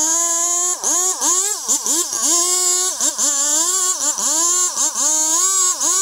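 Chainsaw at high revs, its pitch dipping and recovering many times from about a second in as the chain bites into the wood of a large trunk.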